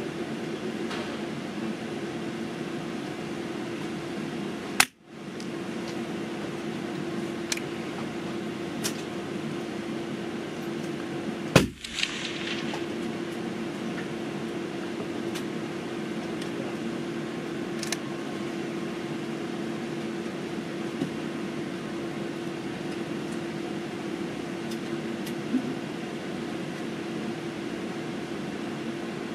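Two shots from a Pedersoli Black Widow .22 LR rifle firing SK 40-grain match ammunition, about seven seconds apart. Each is a sharp crack that briefly cuts the sound out. A few faint clicks fall between and after the shots, over a steady low hum.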